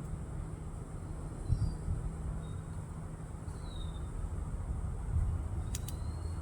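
A few faint, short bird chirps, one sliding down in pitch, over a steady low outdoor rumble, with two faint clicks near the end.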